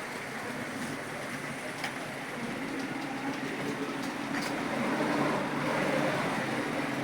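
Steady background rumble and hum that grows a little louder in the second half, with a few faint clicks.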